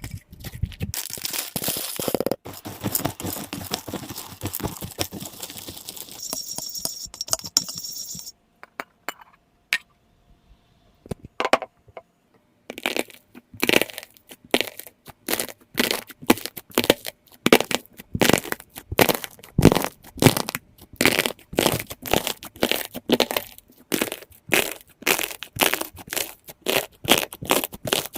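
Crunchy ASMR slime being squished and pressed by hand. It starts as a dense run of crackles and pops, goes sparse for a few seconds, then settles into a steady rhythm of crunches about two a second.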